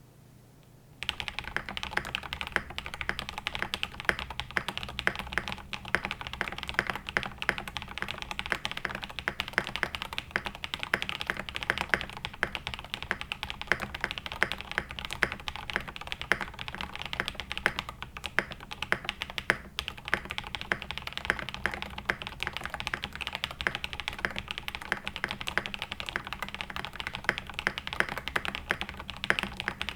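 Fast, continuous typing on a plateless, o-ring-mounted NCR80 mechanical keyboard with lubed and filmed Cobalt switches and MT3 keycaps: a dense patter of keystrokes. It starts about a second in.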